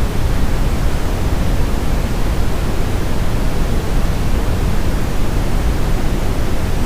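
Steady brown noise: an even, unbroken deep rumbling hiss, heaviest in the bass and thinning out toward the top.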